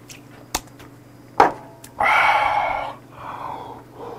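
A glass set down on a wooden table with a sharp knock and a brief ring, then a loud breathy exhale after a swallow of drink, followed by a softer breath.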